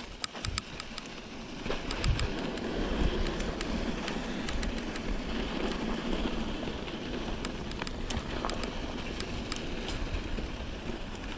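Mountain bike rolling downhill over a dirt and rock trail: steady tyre and wind noise, with scattered sharp ticks of something knocking against the GoPro.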